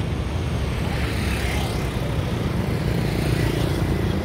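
A steady low outdoor rumble with no distinct event.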